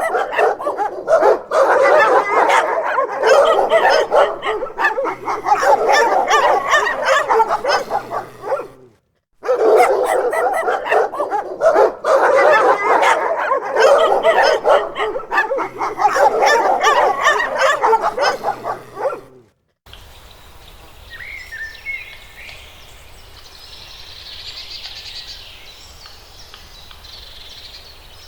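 Dog barking rapidly and almost without pause, in two long stretches broken by a short gap about nine seconds in. The barking stops at about twenty seconds, leaving a much quieter, different animal or background sound.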